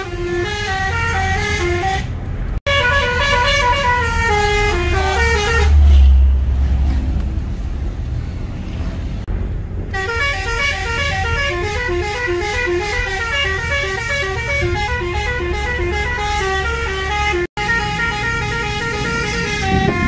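Telolet multi-trumpet horn on a moving car playing chirpy melodies of stepping, horn-like tones. Partway through it stops for a few seconds, leaving a low engine and road rumble, then the melodies start again.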